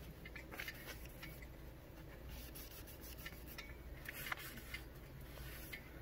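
Paper towel wiping water off a headlight lens: faint, irregular rubbing and rustling.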